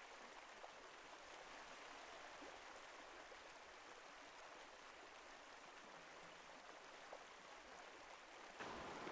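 Faint, steady running water of a stream, near silence otherwise. Shortly before the end a louder rush of noise cuts in abruptly.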